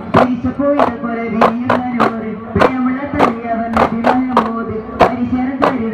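Duff (daff) frame drums struck by hand in unison, sharp slaps about twice a second in a repeating rhythm, over a voice singing long held notes.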